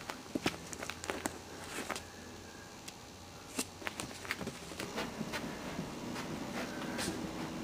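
Scattered sharp clicks and light scratches of Maltese puppies' paws and claws on puppy pads and the pen wall, over a faint steady hum.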